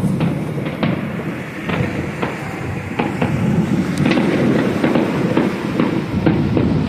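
Aerial fireworks going off: a continuous low rumble of bursts with many sharp pops and bangs, the sharpest about a second, three and four seconds in.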